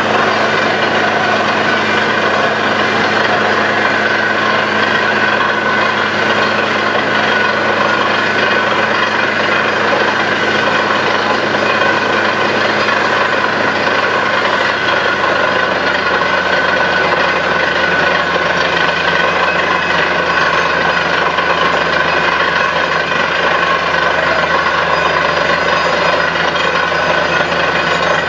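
Truck-mounted borewell drilling rig running steadily as it drills, its engine note constant, with a hiss of water and mud being blown up out of the borehole around the drill pipe.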